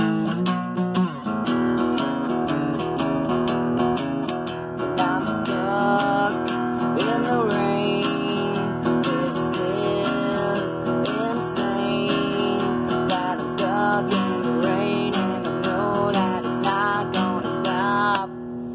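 Flat-top acoustic guitar strummed in a steady rhythm, with a man's voice singing along from about five seconds in.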